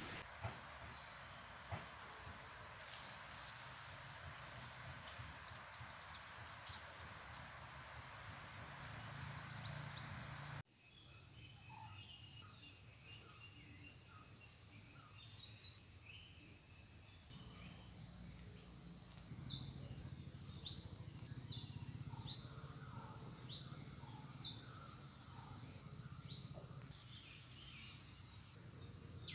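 Steady, high-pitched insect drone, broken off briefly about eleven seconds in. In the second half, a bird gives repeated short, falling chirps over it.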